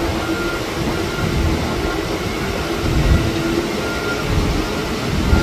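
Heavy vehicle engines running steadily, a low rumble from the forklift and truck at the loading area, with faint short beeps now and then.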